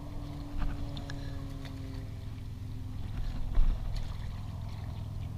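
A passing engine's hum, falling slightly in pitch and fading out about three seconds in, over a steady low rumble. Scattered light clicks and one louder thump come from small fish being picked up and handled on rocky ground.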